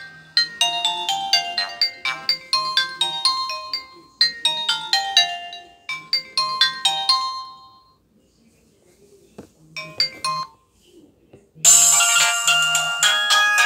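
Nokia 100 mobile phone playing a short repeating electronic ringtone melody through its small speaker. The tune stops about halfway through, followed by a click, a brief snatch of notes and a pause. Near the end a different, louder and fuller ringtone starts.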